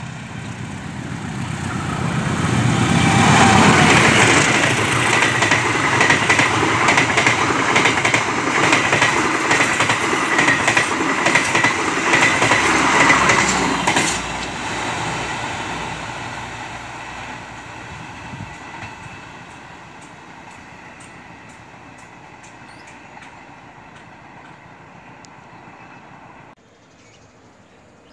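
Locomotive-hauled passenger train passing close by. The sound swells over the first few seconds, then holds as a loud run of wheels clattering on the rails with a steady high squeal. It drops off sharply as the last car passes, about 14 seconds in, and then fades slowly away.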